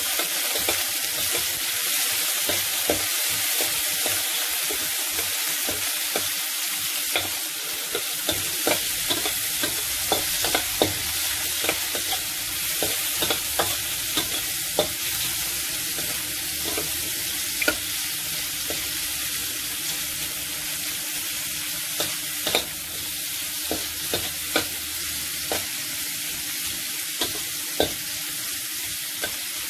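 Octopus, pork and garlic stir-frying in a steel wok: a steady sizzle of hot oil, with frequent clicks and scrapes of the spatula against the wok as the pieces are turned.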